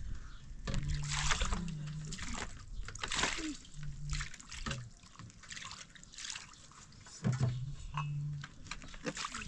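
Water poured from a plastic jerrycan, splashing and trickling over tea glasses on a metal tray as they are rinsed, in several short pours.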